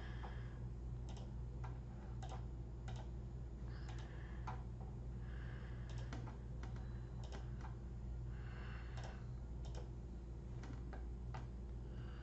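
Irregular clicking of a computer mouse and keyboard, about one or two clicks a second, over a steady low hum.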